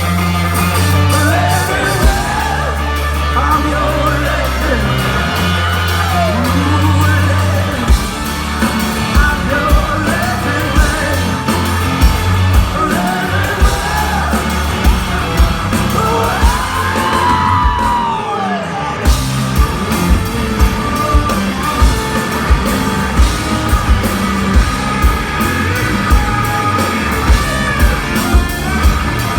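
Rock band playing live in a club, with a singer's bending, wailing lines over heavy bass and drums; from about eight seconds in, the bass drops away and regular drum hits carry the beat.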